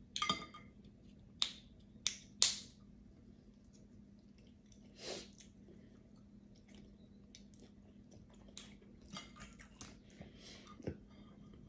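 Cooked crab-leg shells cracked and snapped apart by hand: four sharp cracks in the first few seconds, another about five seconds in, then softer clicks and picking sounds. Light chewing goes on underneath.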